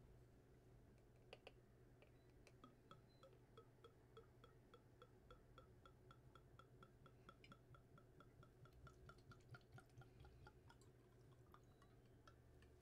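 Vodka glugging out of a glass bottle upended into a plastic bottle: faint, even glugs about three a second, rising slightly in pitch near the end.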